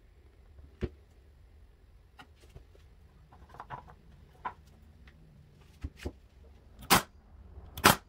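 Workbench handling noises: light taps and clicks of small wooden pieces and a plastic glue bottle, then two loud, sharp knocks about a second apart near the end.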